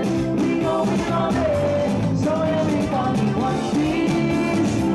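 Live band playing through PA speakers: a singer's amplified voice carries a wavering melody over keyboard chords and a steady drum beat.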